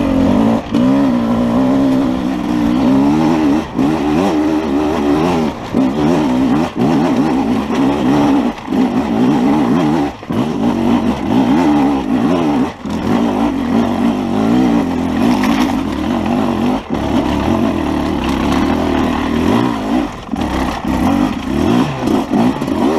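Enduro dirt bike engine revving hard and unevenly on a steep rocky climb. The throttle is opened and chopped again and again, so the engine note keeps rising and falling, with several brief drops.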